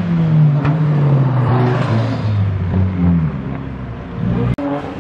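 Small hatchback's engine held at high revs as it spins its tyres in a smoky drift, the engine note sagging lower over the first three seconds under a steady hiss. An abrupt cut near the end brings in another car's engine.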